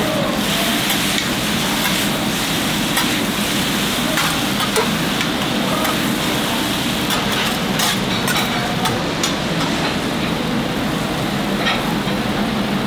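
Smoked brisket for a cheesesteak sizzling steadily as it cooks, with scattered sharp clicks of metal utensils.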